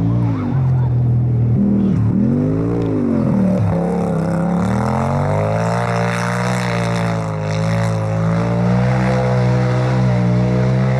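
Polaris RZR Pro XP side-by-side's turbocharged twin-cylinder engine at race throttle: its pitch falls and rises sharply several times in the first few seconds as the throttle is lifted and reapplied, then climbs and holds high as the car accelerates away. A rough hiss of thrown dirt from the tyres runs through the middle.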